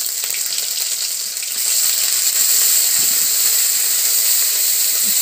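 Ginger-garlic paste frying in hot oil with panch phoron in a wok: a steady, loud sizzle.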